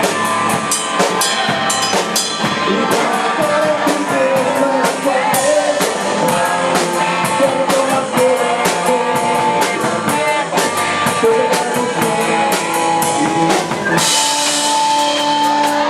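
A rock band playing an instrumental passage on drum kit, electric guitar and bass, with steady drum hits throughout and a cymbal crash about fourteen seconds in.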